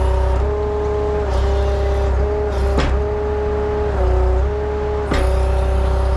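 Skid steer running with its grapple forks being worked: a steady engine drone and whine that sags slightly in pitch a few times, with two sharp clunks partway through.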